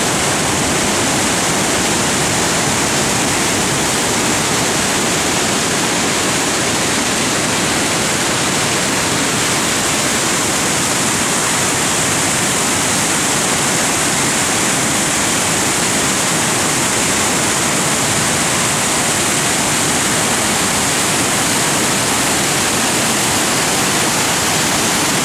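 The River Tees pouring over High Force waterfall and through its rocky rapids, making a loud, steady rush of water.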